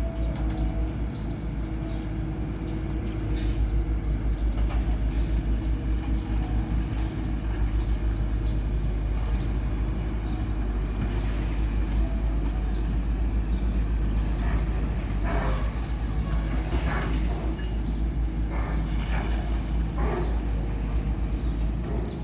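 Heavy diesel construction machinery running steadily with a deep, pulsing engine rumble, with scattered metallic clanks and knocks, thickest in the second half.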